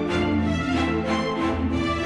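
Orchestral background music with held string notes.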